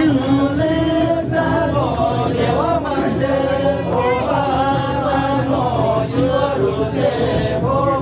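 Several men chanting together in a jhakri shamanic ritual chant, their voices overlapping in a melody that rises and falls without a break.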